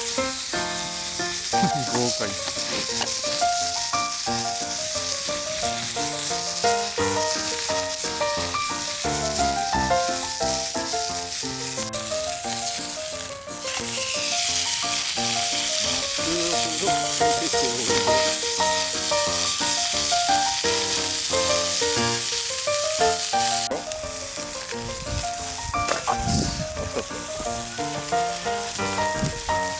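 Meat sizzling in a frying pan over a campfire, a steady crackling hiss, with background music playing a stepping melody over it.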